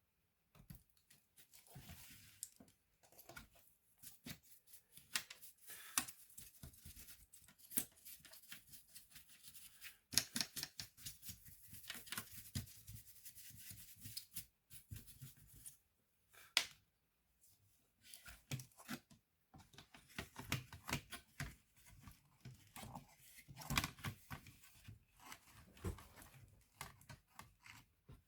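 Hands working on an open laptop: irregular clicks, taps and scraping of small plastic and metal parts, with a few short pauses.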